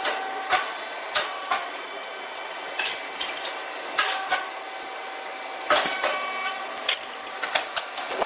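Puffed rice cake machine running: a steady mechanical hum with irregular sharp clicks and knocks. The loudest knock comes a little before six seconds in.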